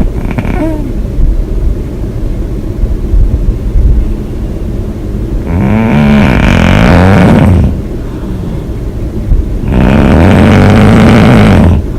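A woman snoring hard: two long, loud snores, each about two seconds, starting about five and a half and about ten seconds in, with low rumbling breaths before them.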